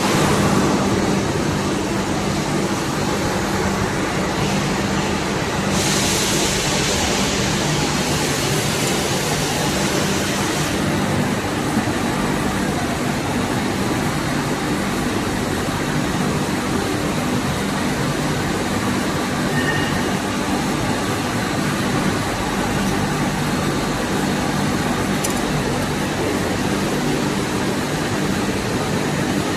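Lathe running steadily with a constant motor hum while turning a workpiece; a brighter hiss joins for about five seconds, starting about six seconds in.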